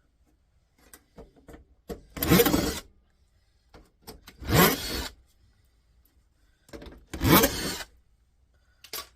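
Power screwdriver or cordless drill backing screws out of a CD player's sheet-metal casing, running in three short bursts of about a second each, its pitch rising as the motor spins up, with small clicks of handling between.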